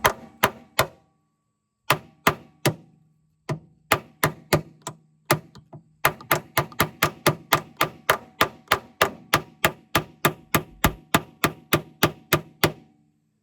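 Hammer blows on a metal removal tool, driving at a rusted, seized door hinge pin sleeve in a Jeep Wrangler JK's door hinge: a few scattered strikes, then a steady run of about three or four blows a second with a short metallic ring. The sleeve is stuck and does not budge.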